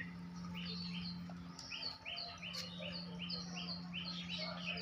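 Small birds chirping: a rapid run of short, even, falling notes about three a second through the middle, over a steady low hum.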